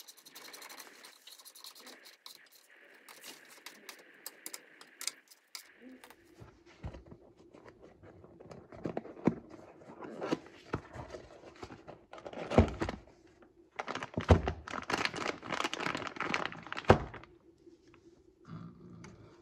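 A hand ratchet clicking rapidly on a bolt under the car, then a cardboard parts box being opened and handled, with crinkling packaging and several sharp knocks of the box and parts on a surface.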